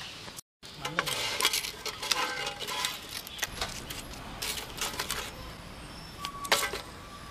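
Dry sticks clattering and scraping as they are pushed into a clay wood-fired stove, a run of sharp irregular clicks and rattles.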